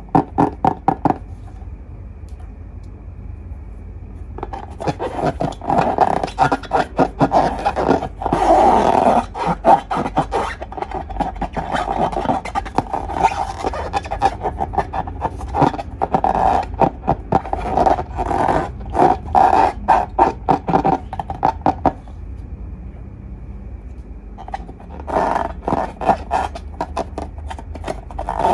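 Slime being squeezed and stretched by hand, making runs of sticky crackling clicks, with two quieter pauses.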